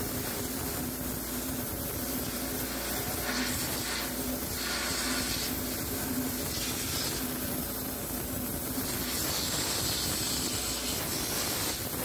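Pressure washer (jet wash) lance spraying inside a cast-iron carronade bore to blast out the old wadding, a steady hiss with a low hum under it as dirty water pours and splashes out of the muzzle.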